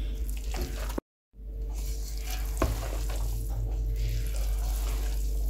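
Wooden-handled spatula stirring and turning cooked biryani rice in a large non-stick pot on the heat: soft scraping and shuffling of rice against the pan over a light sizzle, with a single knock of the spatula on the pot. A brief cut to total silence about a second in.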